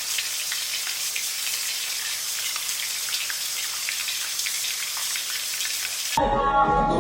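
Steady rain-like hiss dotted with small ticks, like rain falling on a surface. About six seconds in it cuts off abruptly and hip hop music starts.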